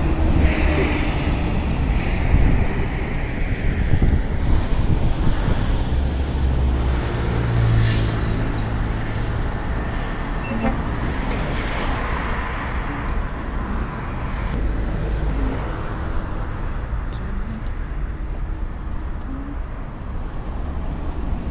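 Steady rumble of road traffic and vehicle engines, with one engine growing louder about seven to eight seconds in.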